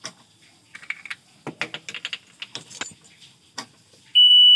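Keys jangling on a key ring and clicking into a boat ignition key switch. About four seconds in comes a loud, steady, high-pitched beep lasting about half a second as the key is turned to ON: the Mercury outboard's warning horn sounding its key-on self-test.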